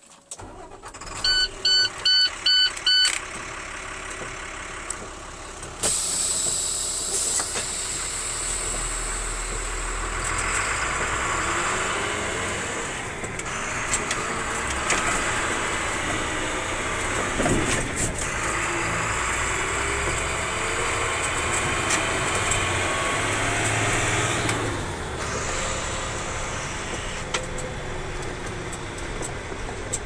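A car's electronic warning chime beeps in a quick run of short, even beeps, then the car's steady running noise of engine, tyres and cabin air comes in and carries on, heard from inside the cabin while driving on snow.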